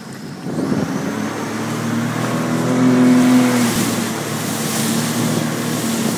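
Sea-Doo RXP personal watercraft engine speeding up under throttle, growing louder to a peak about three seconds in and then holding steady, with water rushing and splashing against the hull.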